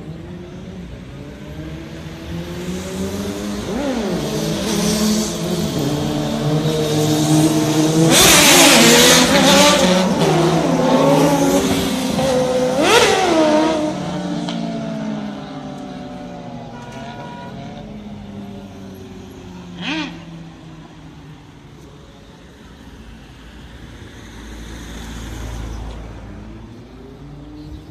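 Several motorcycle engines revving and passing along the street, with sharp rev blips. The sound builds to its loudest about eight to thirteen seconds in, then fades, with one more quick rev about twenty seconds in.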